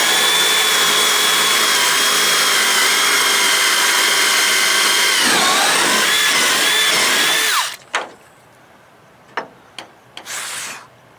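Electric drill boring a hole through a wooden boat transom board: a loud, steady whine for about eight seconds, its pitch dipping under load about five seconds in, then recovering before it cuts off suddenly. A few knocks and a brief burst of noise follow near the end.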